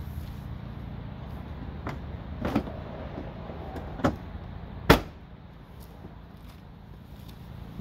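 Car hood being closed: a couple of lighter knocks, then one sharp slam about five seconds in.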